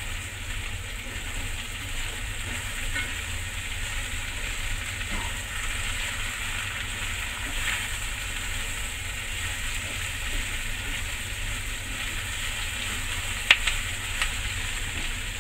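Sliced onions and bell peppers sizzling as they are stir-fried in a stainless steel pan, with a steady low hum underneath. Near the end, the wooden chopsticks click sharply against the pan twice.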